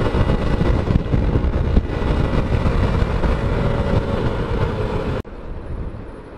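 Bajaj Discover 125 ST single-cylinder motorcycle engine running under way, mixed with heavy wind noise. It cuts off abruptly about five seconds in to a much quieter, steady background.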